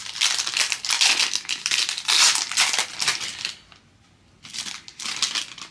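Foil wrapper of a Panini Mosaic football card pack being torn open and crinkled by hand: a long stretch of crackling, a short pause, then a second, shorter burst of crinkling near the end.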